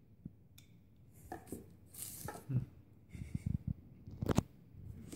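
Small clicks, knocks and a brief rustle from handling a plastic smart-band tracker and its rubber strap. The loudest is a sharp click a little after four seconds.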